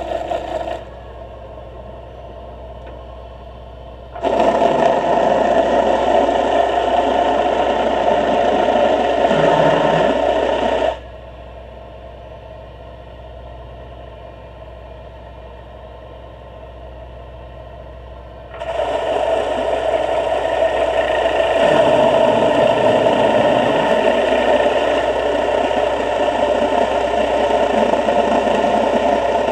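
Motorboat engine and propeller noise heard through the water, a steady hum. It cuts in abruptly about four seconds in, drops out suddenly near eleven seconds, and comes back a few seconds before the halfway point, running on to the end.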